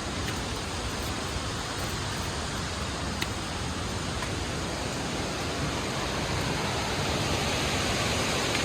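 Steady rushing of a waterfall, growing slightly louder near the end.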